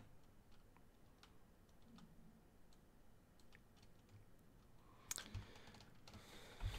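Near silence with a few faint, scattered clicks at a computer keyboard and mouse, one sharper click about five seconds in.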